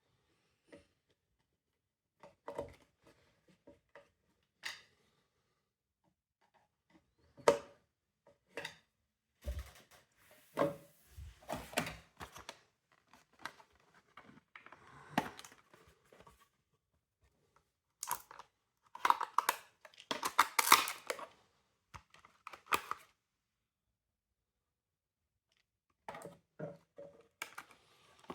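Plastic parts of a Primaster PMFS37 window vacuum cleaner being handled and taken apart: irregular clicks, knocks and rubbing, with a denser spell of rattling and scraping about two-thirds of the way in.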